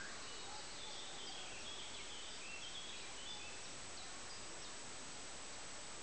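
Steady outdoor background hiss with faint, short bird chirps scattered through the first half.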